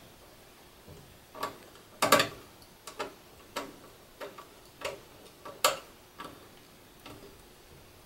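Irregular small clicks and taps of plastic and metal as tinned jumper wires are fitted into the green pluggable terminal blocks of stepper motor drivers. The two loudest clicks come about two seconds in and just before six seconds.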